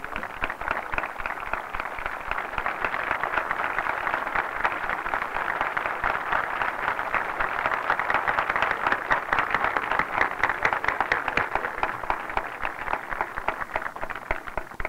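A crowd applauding with dense, steady clapping that stops abruptly at the very end.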